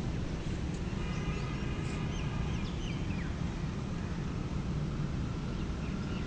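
Outdoor ambience: a steady low rumble with birds chirping and calling, mostly in the first half.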